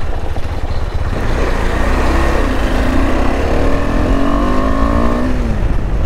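KTM 390 Adventure's single-cylinder engine pulling away and accelerating, its pitch rising for a few seconds and then dropping about five seconds in, over a steady low rumble.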